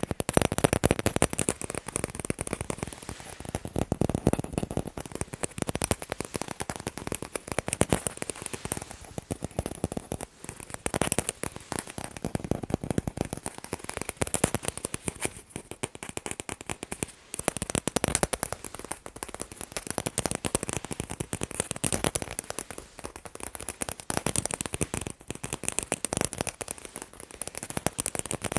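Fast tapping on sports balls: a dense run of quick taps in uneven clusters.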